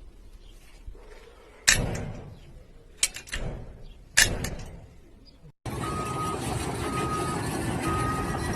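A few sharp bangs, each with a short fading tail. After a brief cut, a vehicle's reversing alarm beeps about once a second over a steady engine noise.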